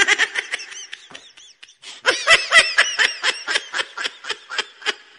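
Laughter: a rapid run of pitched ha-ha pulses, about five a second, in two bouts, a short one at the start and a longer one from about two seconds in.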